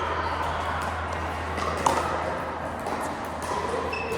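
A pickleball paddle striking the ball with one sharp, ringing pop about two seconds in, among several fainter pops. A low steady hum runs underneath.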